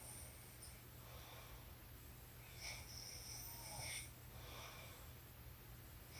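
A sleeping woman's faint snoring breaths: two long in-breaths about three and a half seconds apart, each with a thin high whistle, with shorter, fainter out-breaths between.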